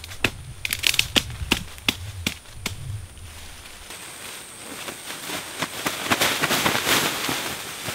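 A quick run of sharp snaps and cracks of twigs breaking in brush. After a cut at about 4 s, a thin plastic sheet rustles and flaps loudly as it is pulled out and spread on the ground, loudest around the middle of its spread.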